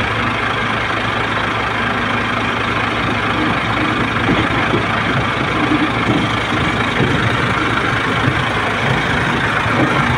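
Crawler crane's diesel engine running steadily as the crane edges into place on a lowboy trailer deck.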